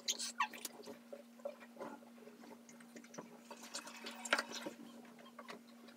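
Faint wet squishing and scattered small clicks as red hair dye is squeezed from its bottle onto cloth, over a steady low hum.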